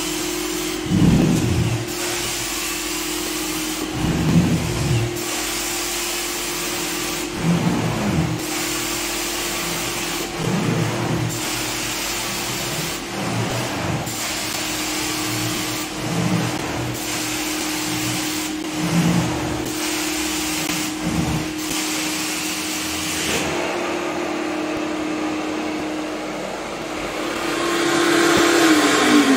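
Carpet extraction machine's vacuum motor running steadily while the cleaning wand is worked across the carpet in strokes every two to three seconds, with a steady hiss over it that stops a few seconds before the end. Near the end the machine is switched off and the motor winds down, its pitch falling.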